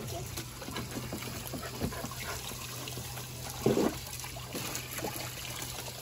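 Water trickling and lightly splashing, with many small scattered splashes and one short louder sound a little past halfway.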